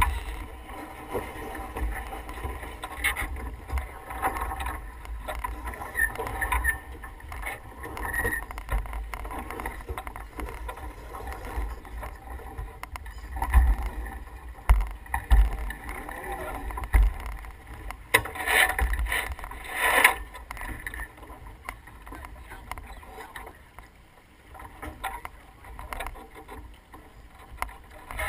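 Wind buffeting the microphone over the rush of water along a sailboat's hull, with crew working lines and winches during a manoeuvre. A louder, noisier stretch comes about 18 to 20 seconds in.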